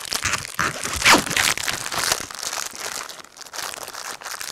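A Ritz cracker packet's wrapper crinkling and tearing as it is pulled open, with its loudest rip about a second in.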